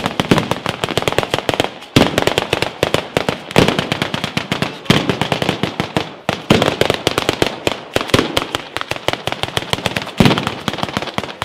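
A batteria alla bolognese, a ground display of firecrackers strung along wires between poles, going off in a dense, rapid stream of cracks. Heavier bangs stand out every second or two.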